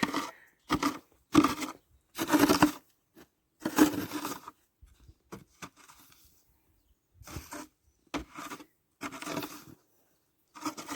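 Footsteps crunching through packed snow, a dozen or so uneven steps.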